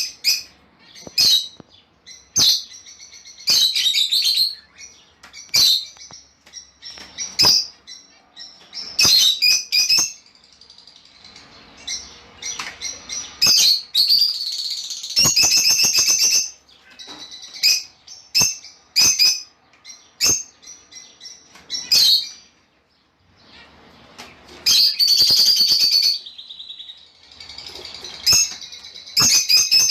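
Lovebirds calling: shrill, sharp chirps and squawks in irregular bursts, with several birds chattering at once in denser clusters and short quieter pauses between.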